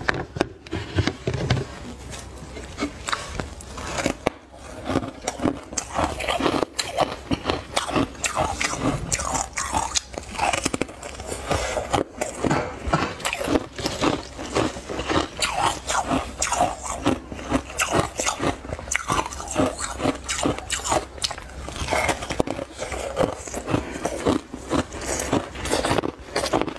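Soft, snow-like crushed ice crunching as it is bitten and chewed close to the microphone and scooped by hand from the mound: a dense, rapid run of crisp crunches.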